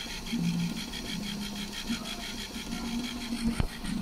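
Philips VR 151 VHS recorder's tape transport running in rewind with a fast, even whirring rhythm over a motor hum that comes and goes, and one sharp click near the end.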